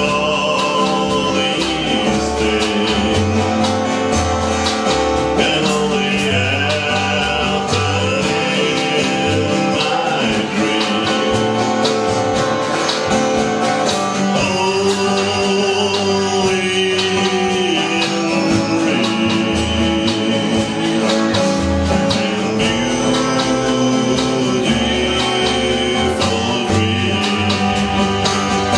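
Live band music from acoustic and electric guitars, upright double bass and drums playing a song together.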